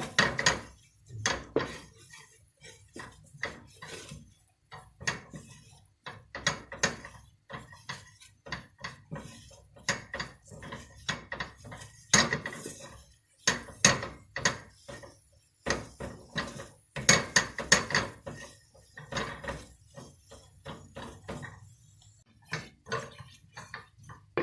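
Wooden spoon scraping and knocking against the inside of a stainless steel pot as flour is stirred and toasted in melted butter, in irregular bursts of clicks and scrapes with short pauses between.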